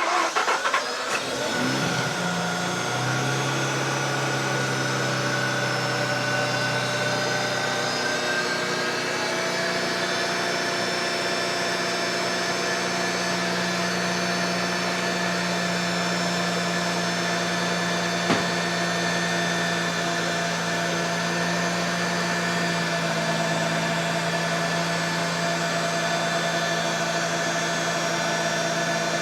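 Mazda RX-8's two-rotor rotary engine starting and settling into a steady idle; the idle pitch steps up a little about eight seconds in and drops slightly a little after twenty seconds. The engine has 183,000 km on it and has been freshly oil-changed with a molybdenum additive.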